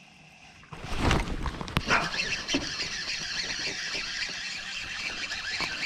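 Casting with a baitcasting rod and reel: a loud rush of the swing about a second in with a couple of clicks, then a steady high whir from the reel.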